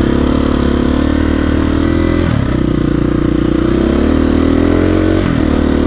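KTM 350 EXC-F dirt bike's single-cylinder four-stroke engine running under way, with wind noise. The engine pitch drops sharply twice, about two and five seconds in, as at gear changes, and climbs again in between.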